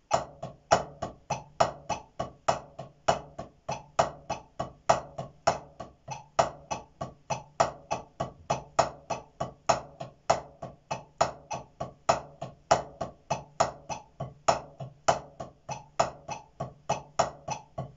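Drumsticks on a practice pad playing a steady run of double strokes (right-right-left-left) with accents, about three to four strokes a second, the accented strokes louder than the soft taps between them.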